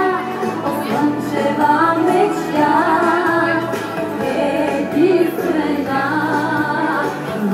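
Music with a woman singing.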